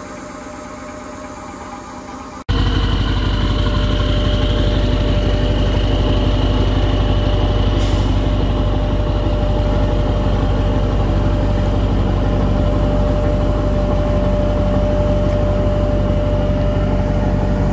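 Scania R500 V8 truck engine running steadily at a constant speed: a deep drone with a steady whine over it, jumping abruptly to much louder about two and a half seconds in. A short hiss about eight seconds in.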